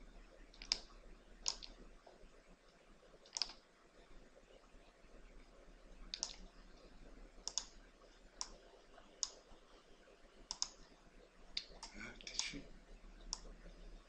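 Computer mouse clicking: about a dozen single clicks at irregular spacing, with a quick cluster of clicks near the end, over a faint low hum.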